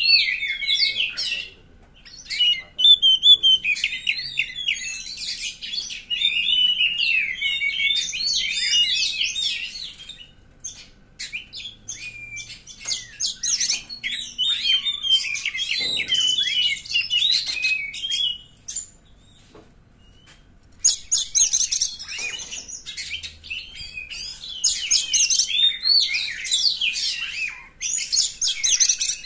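Oriental magpie-robin (kacer) singing an agitated, full song: rapid, varied whistles and chatter in long bursts, with short pauses about two seconds in, around ten seconds and around twenty seconds.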